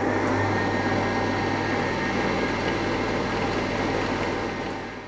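Pillar drill running and drilling a 7/64-inch tapping hole (for a 6-32 UNC thread) into a metal disc: a steady motor hum with the rough noise of the cut, fading away just before the end.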